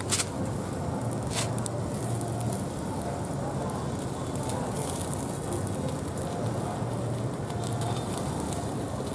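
Land snail skewers grilling over a charcoal fire: steady crackling and sizzling as sauce is basted onto them. A few sharp pops come in the first second and a half.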